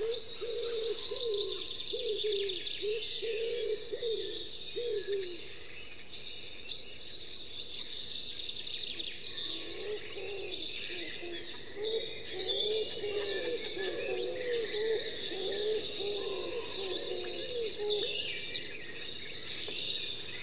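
Birds calling: a low call repeated over and over in two spells, the first dying away about five seconds in and the second running from about nine to eighteen seconds in, over steady higher chirping.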